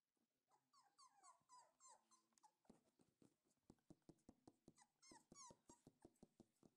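Four-week-old puppy vocalising quietly: a string of short, high, falling whimpers, then a fast run of short sharp yips, about five a second, mixed with more whines.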